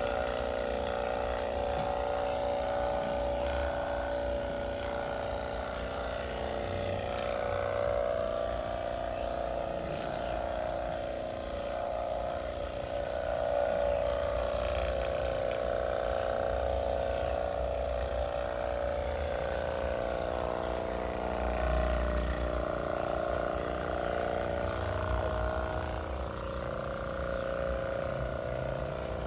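A small electric motor running steadily, with a low rumble that swells and fades.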